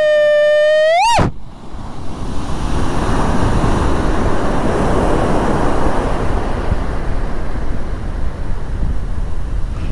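Sea waves breaking and surf washing up a sandy shore, with wind on the microphone; the wash swells a few seconds in. It opens with a loud, steady horn-like tone that stops abruptly about a second in.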